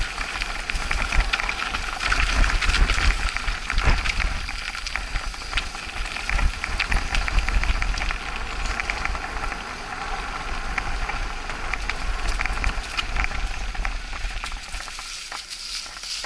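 Mountain bike rolling fast down a rough dirt and stone-paved trail: tyres crunching over stones and gravel with constant small rattles and knocks from the bike, under heavy wind rumble on the microphone. The noise dies away near the end as the bike slows to a stop.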